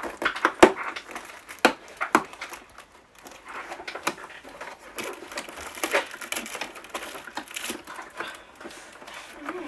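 Cardboard door of a Lindt advent calendar being picked and torn open by fingers. There are sharp snaps and clicks in the first couple of seconds and another at about four seconds, then a stretch of crinkling and rustling.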